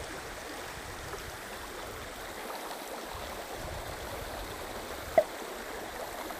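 Shallow creek riffle running steadily over rocks and gravel, with one short sharp click about five seconds in.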